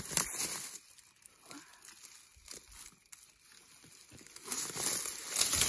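Rustling and crunching of dry leaves, twigs and brush as hands push through undergrowth, loudest at the start and again over the last second or so, with faint crackles in between.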